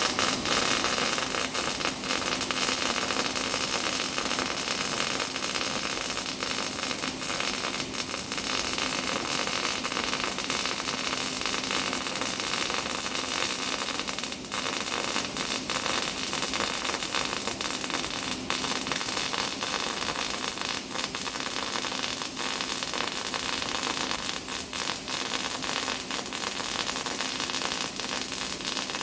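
MIG welding arc crackling and sizzling steadily through one long continuous weld.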